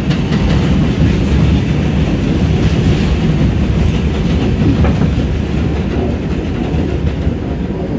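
New York City subway 4 train car running at speed on elevated track, heard from inside the car: a steady, loud rumble with wheel clatter over the rail joints. Another subway train passes on the adjacent track partway through.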